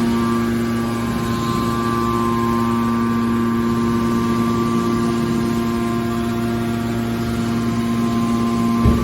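Metal baler machine running with a steady electric-motor hum. A single short knock comes just before the end.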